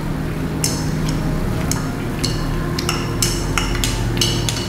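Chopsticks clinking against a metal tabletop grill plate and bowl while meat is turned, a string of short ringing taps, about seven or eight in all, over a steady low hum.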